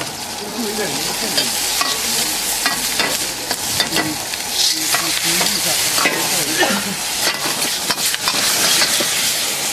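Food sizzling in a hot wok over a gas burner while it is stir-fried, the metal ladle scraping and clicking against the wok again and again.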